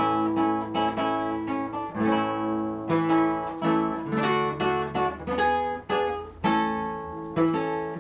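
Nylon-string classical guitar playing a habanera introduction: a steady run of strummed chords and plucked notes, each left to ring.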